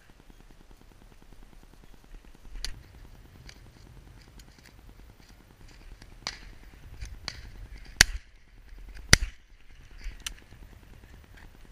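Two close shotgun shots about a second apart, a left and right fired at driven ducks. Fainter, more distant shots crack now and then before and after them.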